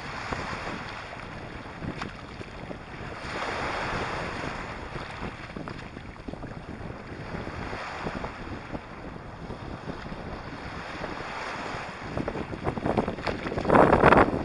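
Small sea waves washing in and draining back over a sand-and-pebble beach close to the microphone, with wind buffeting the microphone. The waves swell and fade, and the biggest wash comes near the end.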